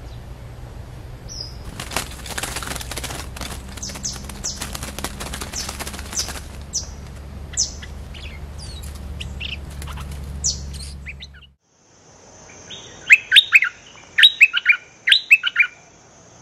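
Caged stripe-throated bulbul decoy calling. First comes a few seconds of fluttering and rustling with scattered short chirps. Then, near the end, a burst of loud, short whistled phrases.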